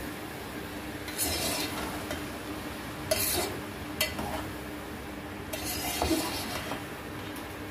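A spoon stirring and scraping sweet yellow rice (zarda) in an aluminium pot, mixing the cooked rice into sugar syrup: several short scraping strokes, with a sharp clink of the spoon on the pot about four seconds in.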